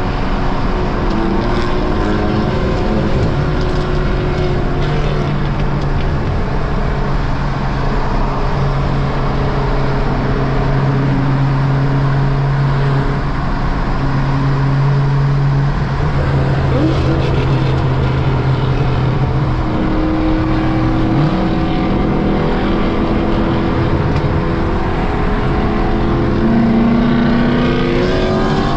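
Car engine and exhaust while driving: a steady drone at cruise for much of the time, then the pitch shifts and rises near the end as the car accelerates.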